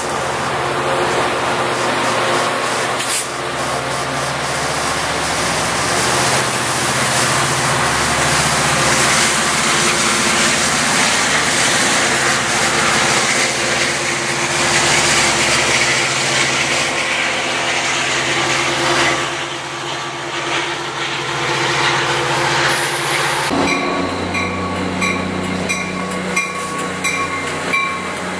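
Passenger trains passing through a station: steady rumble and wheel noise of railcars rolling by, swelling toward the middle. About 23 seconds in it changes abruptly to a Coaster commuter train's diesel locomotive and bilevel coaches passing close, with a steady engine hum.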